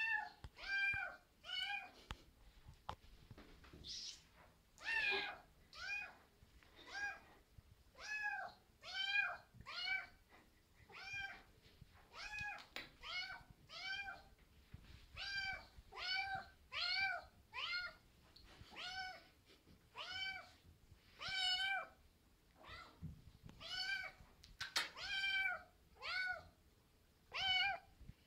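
A Maine Coon kitten meowing over and over: short, high meows about once a second, each rising and then falling in pitch.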